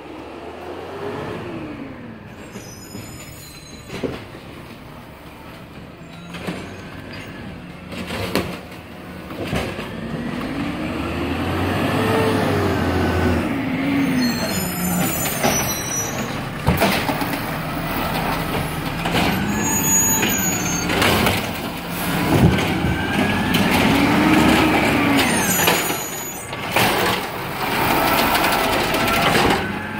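Peterbilt garbage truck working along the street, growing louder as it draws near. Its engine revs up and falls back in several swells, with short hisses and a few sharp clanks between them.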